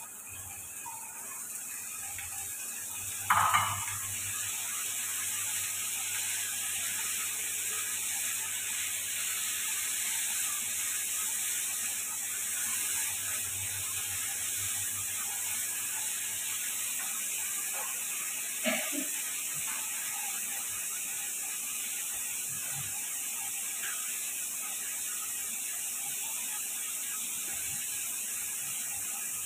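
Diced potatoes frying in hot mustard oil in a kadai, a steady sizzle that builds over the first few seconds and then holds. A metal utensil clanks about three seconds in, and again more faintly near nineteen seconds.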